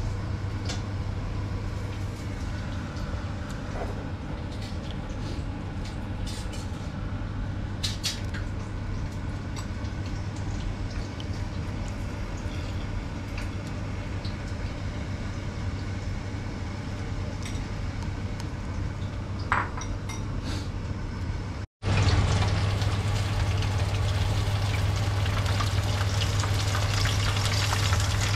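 A steady low hum with a few light clicks, then after a sudden cut near the end, battered fish tempura frying in a pan of hot oil: a dense crackling sizzle over the hum.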